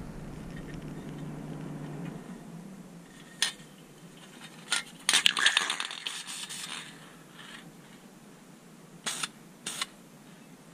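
Aerosol can of chrome spray paint: a few sharp clicks, then a loud hissing spray burst of just under two seconds about five seconds in, with more clicks from handling the can and part near the end. A low hum fades away over the first few seconds.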